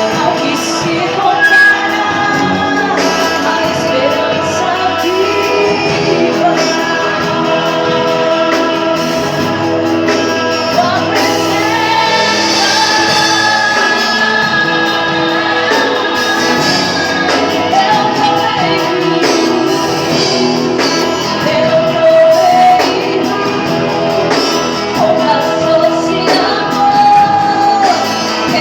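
Live gospel worship music: singing over a sustained instrumental backing, in a large hall.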